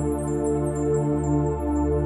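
Calm ambient background music: long held chords over a low drone, with a high twinkling run of notes above.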